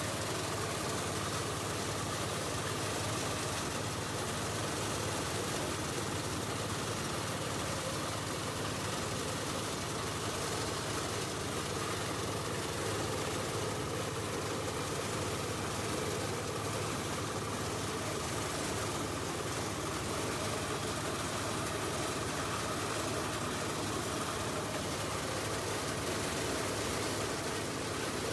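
Engine-driven rice thresher running steadily, a continuous even engine drone with no change in speed.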